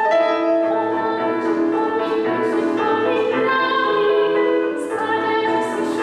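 A woman singing with a Yamaha digital piano accompanying her, holding long notes as the melody moves.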